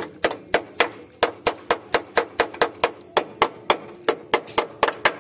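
Hammer rapping on a rust-rotted steel minibus chassis rail, about three sharp metal knocks a second.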